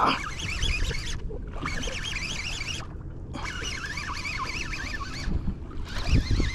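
Wind buffeting the microphone on a boat at sea, a steady low rumble that gusts louder near the end. High wavering chirps come over it in short runs with brief gaps.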